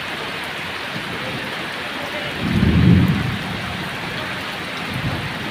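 Heavy rain pouring steadily onto a flooded street and standing water, a constant hiss. About halfway through, a low rumble swells up for about a second and fades.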